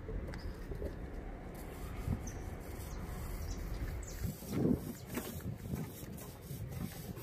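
A dove cooing a few times, mostly in the second half, over a steady low rumble.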